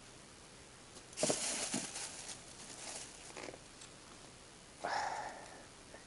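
Rustling and crinkling of things being handled, in two short bursts, about a second in and again near five seconds, with a few lighter scuffs between.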